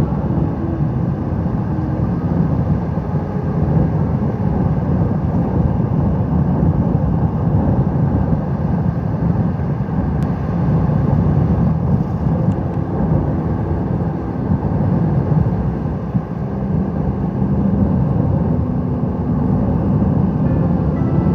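Strong wind blowing across the microphone on an open surf beach: a steady, dense low rumble.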